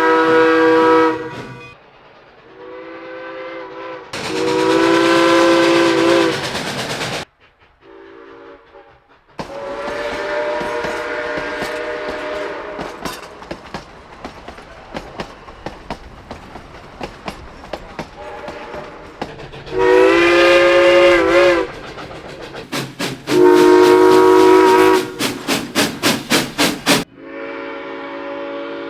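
Locomotive horn and whistle chords sounding in a string of separate blasts, with abrupt cuts between them. In the middle, wheels click over the rail joints as a train passes. Near the end comes a quick run of about seven short toots, then another long chord.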